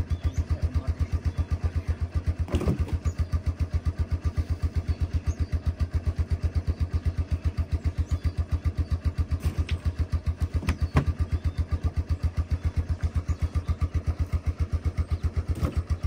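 A four-wheeler (ATV) engine idling with a steady, even pulse, with a few brief knocks over it.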